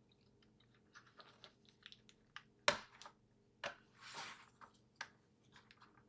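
Faint scattered clicks, taps and short scrapes from handling a GPD MicroPC 2's case while its bottom cover is worked loose from its retaining clips, with one sharper click a little before the middle.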